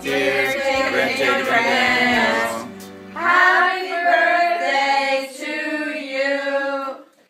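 Singing voices with music. The low accompaniment drops out about three seconds in, leaving the voices.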